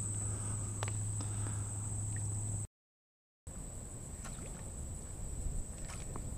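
Quiet water sounds around a kayak: small drips and laps with a few light clicks, under a steady high whine. The sound cuts out completely for under a second a little before the middle.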